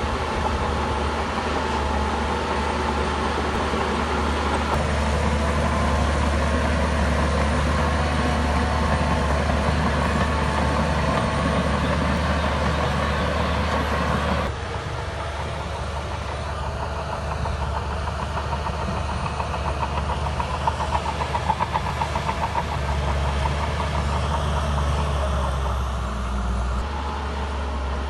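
Heavy diesel earthmoving machinery running steadily under work. About halfway through the sound changes abruptly.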